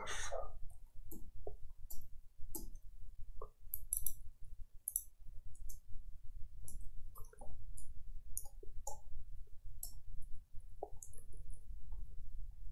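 Computer keyboard typing: irregular, quick keystroke clicks.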